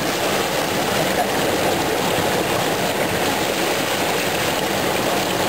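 Small waterfall rushing through a narrow gap between boulders and pouring onto a person sitting beneath it in the pool, a steady rush of water.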